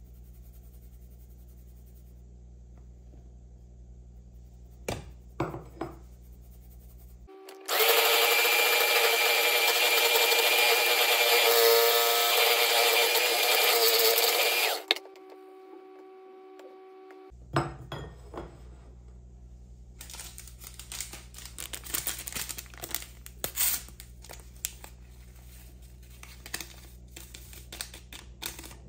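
Electric hand mixer (Bluesky) beating cake batter in a bowl: a steady motor whine that starts about eight seconds in and cuts off after about seven seconds. Before and after it come scattered light clicks and taps of kitchen utensils against the bowl and sieve.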